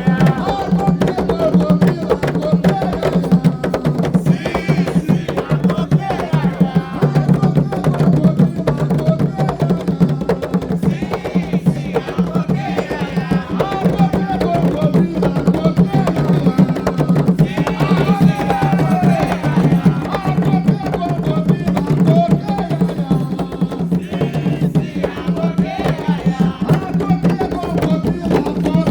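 Atabaques, Afro-Brazilian hand drums, played together in a steady, driving rhythm.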